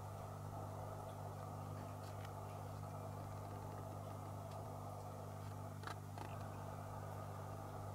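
A steady low electrical-sounding hum, with a few faint soft ticks about two seconds in and again around six seconds in.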